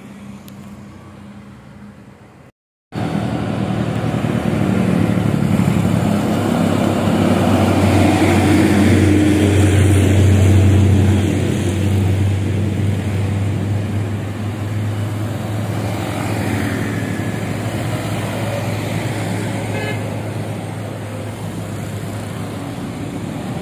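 Road traffic passing close by: cars, motorcycles and trucks going by, with a steady low engine drone that swells about ten seconds in and then eases off. It opens quieter, with a brief dropout about two and a half seconds in, and a short horn toot sounds near the end.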